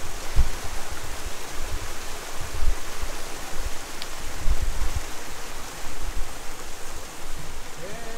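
River water running steadily over a small waterfall, a constant even rush, with irregular low rumbles underneath.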